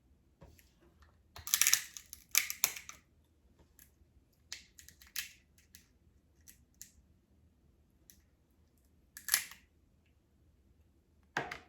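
Eating and food-handling noises from a seafood boil: irregular crackling, rustling and smacking bursts close to the microphone, with a dense cluster early on and single sharp ones later.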